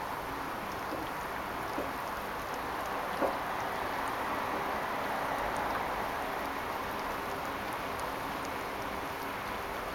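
Labrador puppy gnawing a raw chicken leg bone: a couple of faint crunches in the first few seconds over a steady background hiss.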